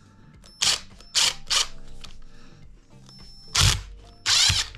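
Cordless impact driver sinking a screw into a block of wood in short trigger pulls: three quick bursts early, then longer runs near the end with the rapid hammering of the impact mechanism as the screw seats.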